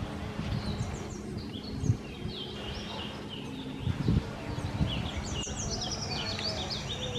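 Small birds chirping and calling in quick runs of short high notes, busiest in the second half. Two dull low thumps, the loudest sounds, come about two and four seconds in.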